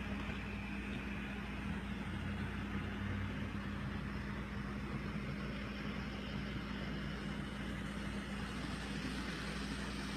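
N scale model railroad layout in operation: a steady low hum over an even hiss, unchanged as the model locomotive passes close by.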